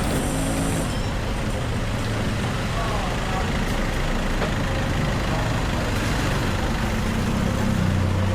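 Street traffic noise with a motor vehicle's engine running close by. The low engine hum grows louder near the end.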